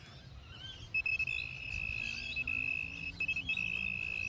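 Handheld metal-detecting pinpointer sounding a steady high tone as its tip is worked in the soil, signalling buried metal right at the probe. The tone starts about a second in, breaks off briefly twice and stops near the end.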